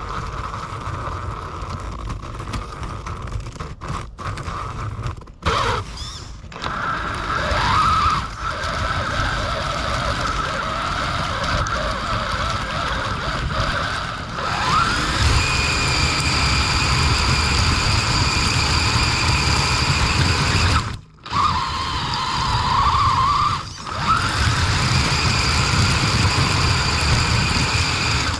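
Axial Capra RC crawler's electric motor and geared drivetrain whining as it drives over snow, heard close from a camera mounted on the car. The whine rises and falls with the throttle and drops out briefly several times, running higher and steadier in the second half.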